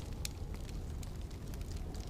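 Wood fire crackling with a few sharp pops over a steady low rumble of wind.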